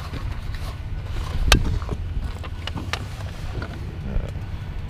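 Wind buffeting the microphone with a steady low rumble, over a few sharp metallic clicks as an antique hand-cranked noodle maker and its metal crank handle are handled; the loudest click comes about a second and a half in.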